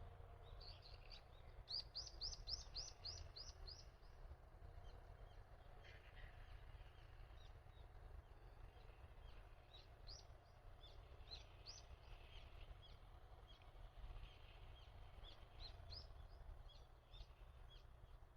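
Small birds chirping faintly: a quick run of high chirps, about four a second, in the first few seconds, then scattered chirps later, over a faint low rumble.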